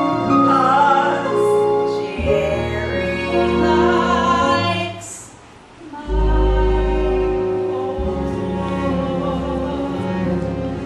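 Singing over instrumental accompaniment, with long held melodic notes; the music dips briefly about five seconds in, then a new phrase starts over a low bass note.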